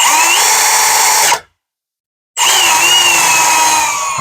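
Power drill running in two bursts, boring guide holes through a window template and the van's side wall: a short run of about a second and a half, then after a one-second pause a longer run that begins about two and a half seconds in.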